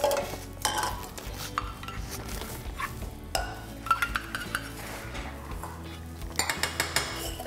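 A metal spoon clinking and scraping against a metal measuring cup and a frying pan as it is spooned out, with scattered clinks and a denser run of clatter near the end.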